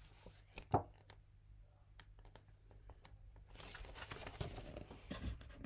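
Faint handling of a paperback picture book: a few light taps, then its cover and pages rustle as it is opened, about halfway through.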